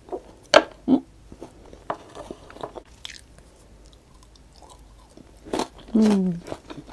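Close-miked chewing and biting of crunchy food, including a bite of crisp Japanese cucumber, with a few sharp crunches standing out. Near the end the eater gives a short 'mm' that falls in pitch.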